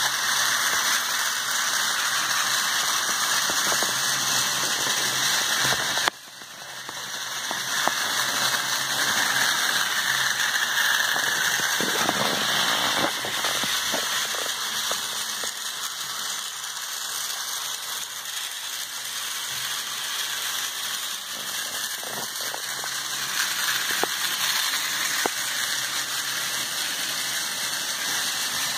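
Ferrorama toy electric trains with D-51 model locomotives running on the layout's track: the small motors whirring steadily, with scattered clicks of wheels over the rail joints. The level drops sharply about six seconds in, then builds back up.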